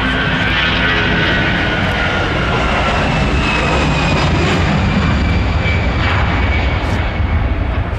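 Jet airliner's engines running, a steady loud rumble with a high whine that slowly falls in pitch.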